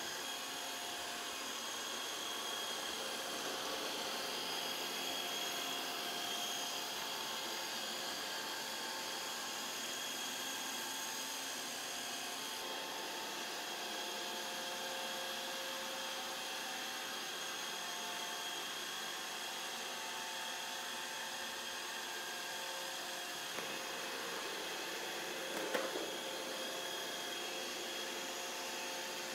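Robot vacuum running under an EVA-foam cover: a steady whir with several thin whining motor tones. A few brief knocks near the end.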